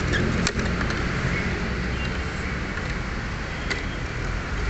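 Steady background noise with a low rumble, and two sharp clicks: one about half a second in and one near the end.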